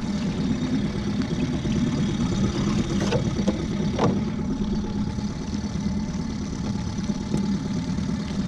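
15 hp Evinrude outboard motor on a small jon boat idling steadily, with two light knocks about three and four seconds in.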